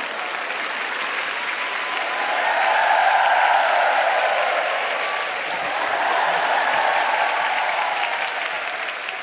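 Theatre audience applauding, the clapping swelling to its loudest about three seconds in and easing off toward the end.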